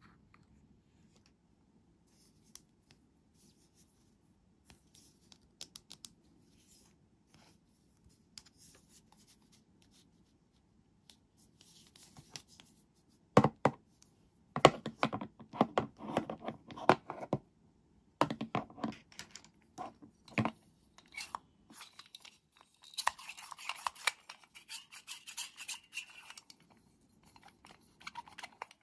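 Hard plastic toy doctor-kit pieces handled at close range: faint small clicks at first, then from about halfway louder plastic clacks and knocks as pieces are set into the kit, with a stretch of scratchy rubbing a few seconds before the end.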